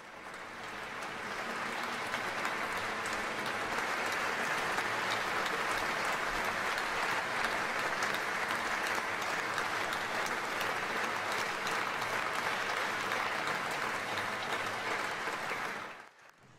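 Audience applauding: a dense, even patter of many hands clapping that builds over the first two seconds, holds steady, then cuts off about sixteen seconds in.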